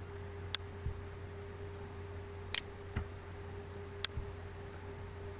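Computer mouse button clicking three times, each sharp click followed shortly by a softer knock, over a steady low hum.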